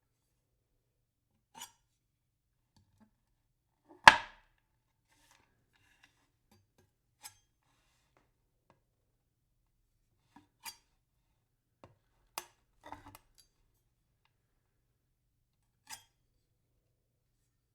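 Knife blade chopping down onto wood in single sharp strikes spaced a few seconds apart, the loudest about four seconds in, with a quick cluster of lighter knocks around thirteen seconds.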